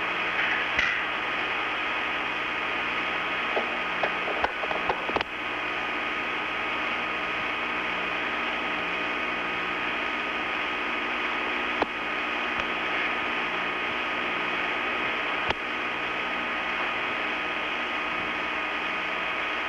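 Steady hiss with faint constant hum tones, broken by a short cluster of clicks about four to five seconds in and two single clicks later.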